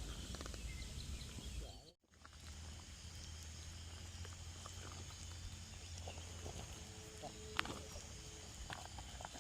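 Faint outdoor ambience with no speech: a steady low rumble, faint steady high-pitched tones and a few light clicks. The sound cuts out completely for a moment about two seconds in, then returns.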